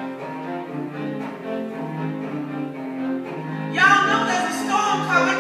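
String quartet playing live: the low strings repeat a pulsing figure of short notes, and about four seconds in, higher bowed lines come in louder with bending, sliding pitches.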